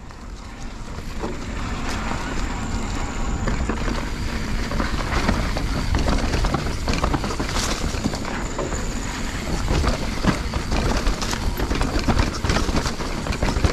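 Mountain bike riding down a dirt and rock trail: tyres rolling over the ground, with frequent clicks, knocks and rattles from the bike over the bumps.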